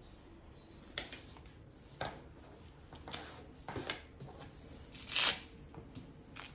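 Handling noises from a fabric posture-correction belt: short rustles and clicks about once a second, then a louder tearing rip a little after five seconds in.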